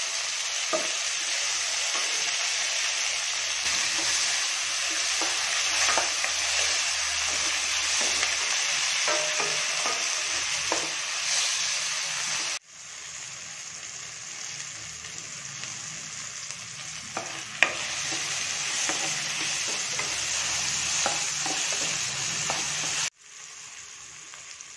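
Chopped tomatoes, onion and garlic frying in oil in a stainless steel kadai: a steady sizzle, with a wooden spatula stirring and scraping against the pan. The sizzle drops suddenly about halfway through and again near the end.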